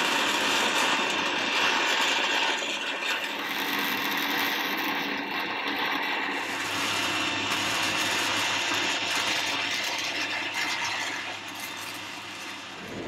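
Electric arc welding on steel, welding out a new longitudinal in a steel boat's framing: a steady, unbroken sizzle that drops in level near the end.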